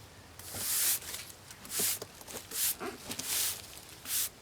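A series of short rubbing or brushing strokes, roughly one a second, as if a hand or brush is sweeping across a rough-sawn board.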